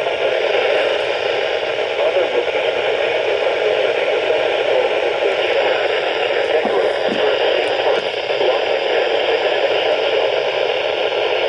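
Steady static hiss from a NOAA weather radio receiver's speaker, with no clear voice coming through.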